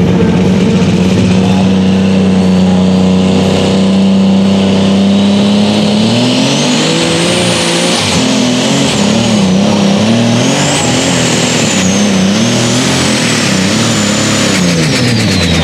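Light super stock pulling tractor's turbocharged diesel engine held at steady high revs, then climbing about six seconds in as it pulls the sled. Under load its revs bounce up and down, and a high turbo whistle rises over it. Near the end the revs and the whistle fall away together.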